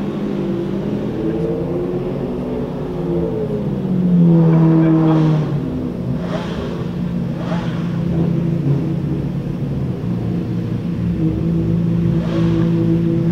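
Maserati MC12 Corsa's 6.0-litre V12 running at idle. It is blipped up and down in the first few seconds and revved louder and held briefly about four seconds in, with a few short sharp noises over the next few seconds, then settles back to a steady idle.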